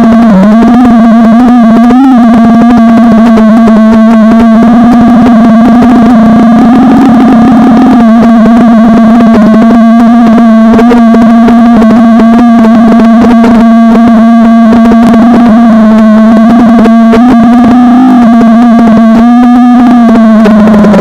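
FPV quadcopter's brushless motors and propellers whining at a near-steady pitch, bending up briefly a few times as the throttle changes. Very loud on the onboard camera's microphone.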